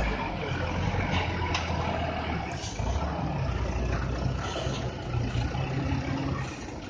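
Diesel engine of a loaded palm-fruit truck labouring as it drives through soft mud, belching black smoke, a steady low drone that fades somewhat near the end as the truck moves away.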